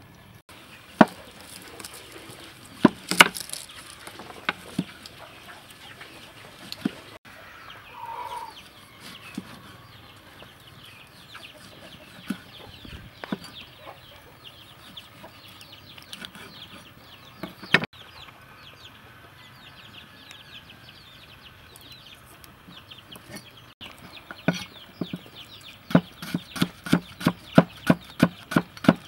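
Cleaver blade knocking on a wooden chopping board: scattered single cuts through limes, then near the end a fast, even run of chops, about three a second, slicing lemongrass stalks into thin rings.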